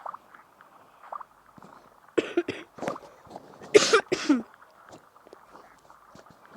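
A person coughing in two quick pairs, about two seconds in and again near four seconds, the second pair the louder.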